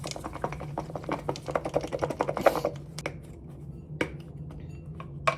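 Cucumber salad being mixed with a utensil in a bowl: rapid clicking and tapping for about two and a half seconds, then a few scattered clicks.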